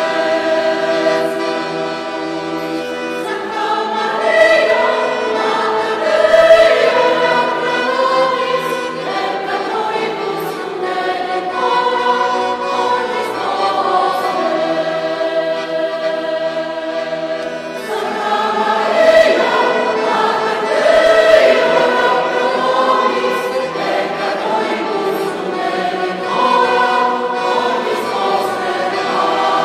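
Mixed choir of women's and men's voices singing a sacred song in held, sustained phrases, swelling louder a few seconds in and again just past the middle.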